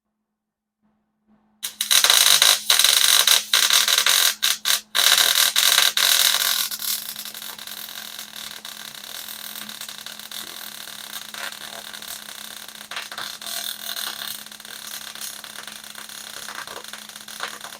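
Arc welding: a loud, crackling, sputtering hiss that starts about one and a half seconds in, choppy with brief breaks for the first few seconds, then settles into a lower, steadier crackle over a constant low hum, and cuts off abruptly at the end.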